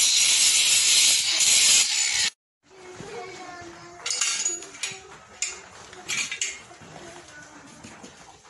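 Loud, steady hiss of a farrier's forge burner that cuts off abruptly about two seconds in. After it come a few faint metallic clinks of horseshoes and tools.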